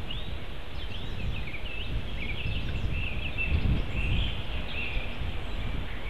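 Songbirds singing in the forest, a continuous run of short chirps and warbled phrases from more than one bird, over a steady low rumble.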